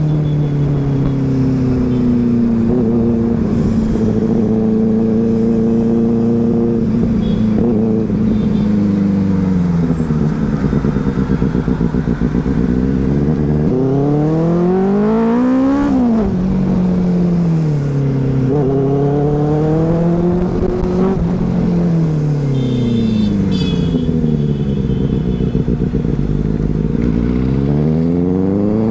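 Sport motorcycle engine heard from the rider's seat, its revs rising and falling as it accelerates and slows in traffic, with one steep climb about halfway through that drops straight back. A steady low rumble of wind and road noise runs underneath.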